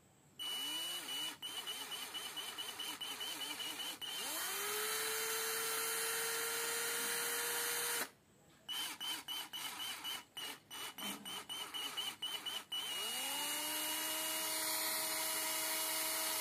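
Buildskill 12 V cordless screwdriver-drill running with no load. The trigger is blipped in quick stop-start bursts for a few seconds, then held, so the motor spins up to a steady whine for about four seconds and stops. The pattern happens twice.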